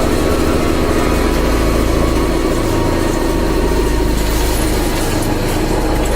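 CNC drilling-milling machine running with a steady, loud mechanical hum that shifts slightly in its low end about a second in.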